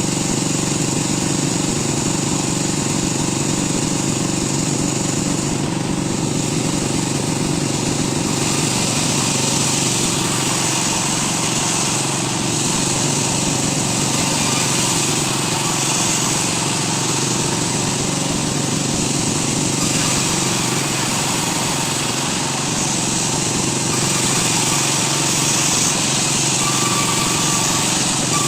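A woodworking power tool's motor running steadily and loudly, without a break.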